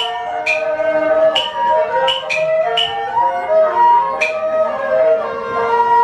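Taiwanese opera accompaniment in beiguan style: a flute-like wind melody moving in short held notes, with sharp clapper clicks marking the beat roughly once a second.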